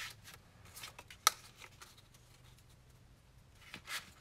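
Black cardstock being handled and folded on a cutting mat: soft scattered paper rustles and ticks, with one sharp click a little over a second in and a longer rustle near the end.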